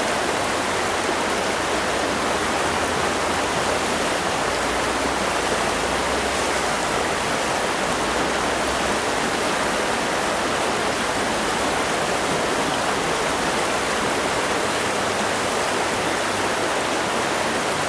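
A river riffle rushing steadily over rocks, a constant even rush of fast water.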